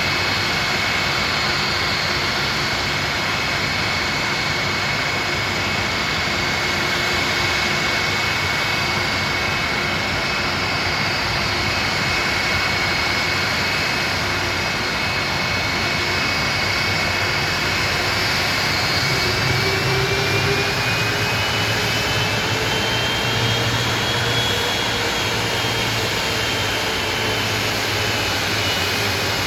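Jet aircraft engines running with a dense, steady roar and a high turbine whine. About two-thirds of the way through, further whining tones rise in pitch and then hold, as the engine note changes.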